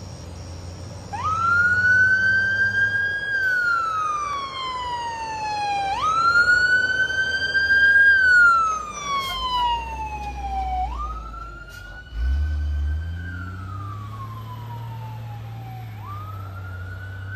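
Fire truck siren wailing as the truck approaches and passes. It starts up a second in and repeats about every five seconds, each cycle a quick rise and a slow fall, loudest about halfway and fainter after. Under it runs the low rumble of the truck's engine, which swells suddenly about two-thirds of the way through.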